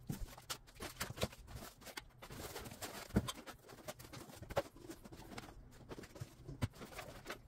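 Unpacking noise from a 3D printer being lifted out of its foam-lined cardboard box: scattered light knocks and taps from the metal frame and parts, with rustling, busiest about two to three seconds in.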